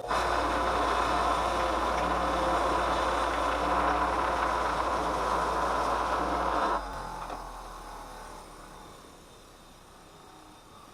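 Electric wire wheel scrubbing steel pieces clean, a steady loud scratching over the motor's hum. About seven seconds in the brushing stops and the motor slowly winds down.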